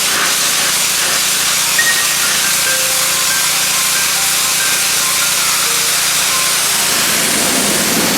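Pressure washer jet spraying water, a steady loud hiss.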